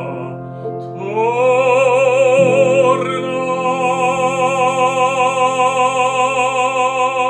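Bass-baritone singing an operatic art song with piano accompaniment. About a second in, the voice slides up into one long held note with wide vibrato, over sustained piano chords.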